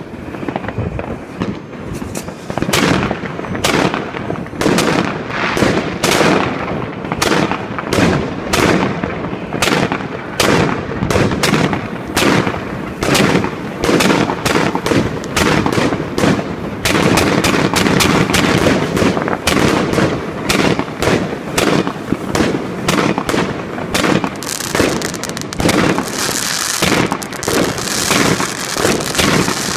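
Evolution Fireworks 'The Golden Age' 160-shot cake firing in rapid succession. Shot after shot launches and bursts overhead, about two to three bangs a second, without a pause.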